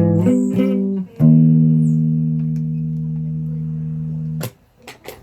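Guitar played with a pick: a quick run of plucked notes, then a chord struck about a second in and left to ring, slowly fading, until it is muted abruptly near the end, followed by a few faint clicks.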